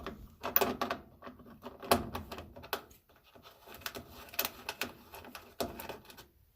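Metal tool clicking and knocking irregularly as a bolt is unscrewed from the back of a washing machine cabinet. The sound stops abruptly near the end.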